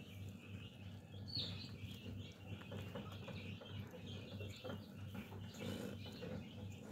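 Newborn Kuril Bobtail kittens squeaking while they nurse, with a brief high squeak about a second and a half in, over a low steady hum.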